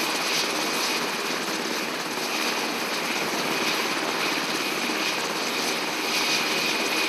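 Helicopter running, a loud steady rush of rotor and engine noise with a thin high whine over it.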